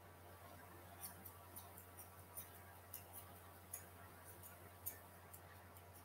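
Grooming scissors snipping through a dog's fur: faint, quick clicks, about three a second and unevenly spaced, starting about a second in.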